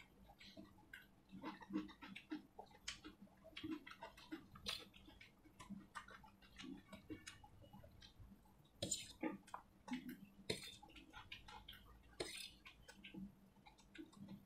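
Faint eating sounds: a spoon clicking and scraping on a stainless steel plate, with chewing of fried rice. The clicks are irregular, with a few louder clusters.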